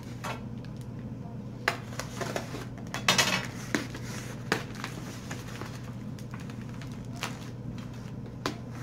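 Cardboard box being handled and opened on a glass tabletop: scattered taps, knocks and scrapes, with one longer scraping rustle about three seconds in, over a faint steady low hum.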